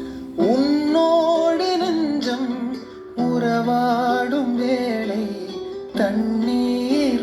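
Music from a Tamil song: a wavering melody line over plucked guitar and sustained accompaniment, in three phrases.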